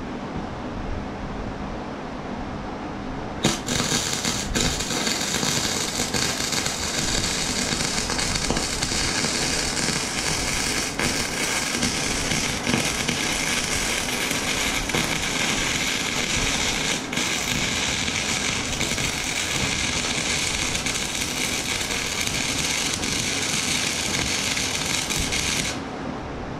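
Flux-core wire welder (Titanium 125) arc crackling steadily as a bead is run along a crack in a rotary cutter's steel deck. The arc strikes suddenly about three and a half seconds in and cuts off just before the end.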